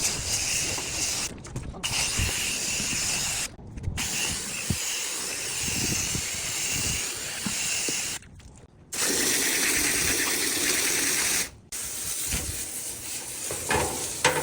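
Steady hissing spray of water, a hose rinsing down an AC condensing unit, heard in several short takes with abrupt cuts between them.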